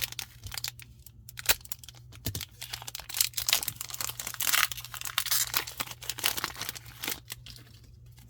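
Foil trading-card booster pack being torn open and its wrapper crinkled, a dense run of crackles that thickens in the middle and dies away shortly before the end.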